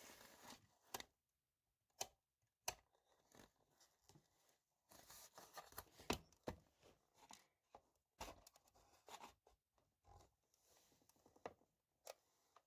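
Glued plastic seams of a Philips tower speaker enclosure cracking and snapping as they are pried apart, in an irregular run of sharp snaps and short creaks, the loudest about six seconds in.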